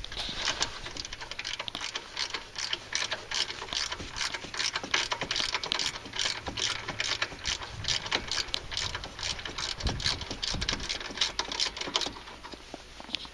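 Socket ratchet wrench clicking fast in repeated strokes as the bolt holding a snowblower pulley is loosened. The clicking stops about a second before the end.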